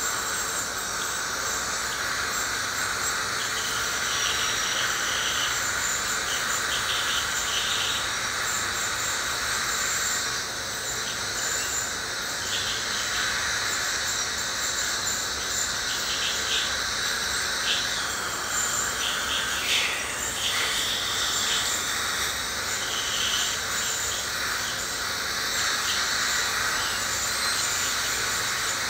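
Ultrasonic dental scaler running with its water spray: a steady high-pitched whine and hiss, broken by short irregular chattering as the tip works against heavy tartar on the teeth.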